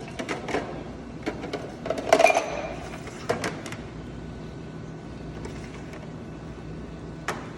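Cooked green beans tipped into a pan with a utensil: a run of clicks and knocks, the loudest about two seconds in. After that a steady low hum, with one more click near the end.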